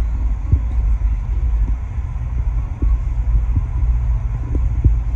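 A car running with a steady low rumble, with a few short knocks over it.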